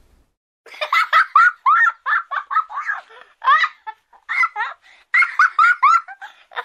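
A baby laughing in quick runs of short, high-pitched giggles. The laughter starts under a second in and pauses briefly midway.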